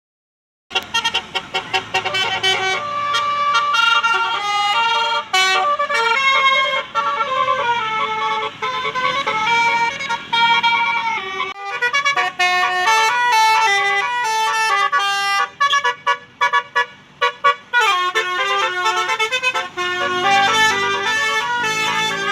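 Bus 'telolet' multi-tone horn playing a tune, its notes changing in quick steps. It starts suddenly about a second in and breaks off briefly around the middle.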